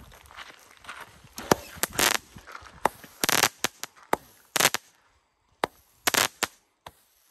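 A 25-shot consumer firework cake in a plastic body firing. It launches a shot roughly every second and a half, starting about a second and a half in, with sharp pops from the breaks in between.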